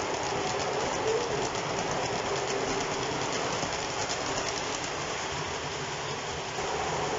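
O scale model passenger cars rolling past on their track: a steady rumble with rapid, even clicking of the wheels over the rail joints. The clicking fades as the end of the train goes by near the end.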